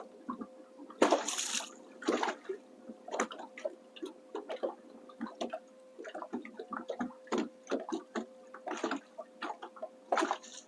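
Small waves slapping and gurgling against a boat's hull in irregular splashes, the loudest about a second in, over a faint steady hum.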